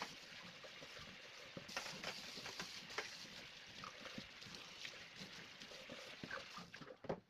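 Water running in a steady hiss, with light clinks and knocks of dishes being handled throughout and a louder knock near the end.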